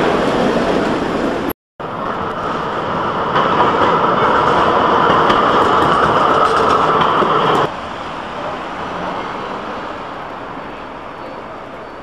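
Tram running along street track, its wheel and running noise loud and steady, broken by a short silent gap near the start. About eight seconds in the sound cuts to quieter, steadier street traffic noise.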